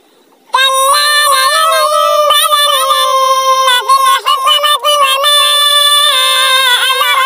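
A high-pitched voice chanting a melodic Quran recitation (tilawat), with long held notes and small ornamental turns in pitch. It begins after a brief silence about half a second in.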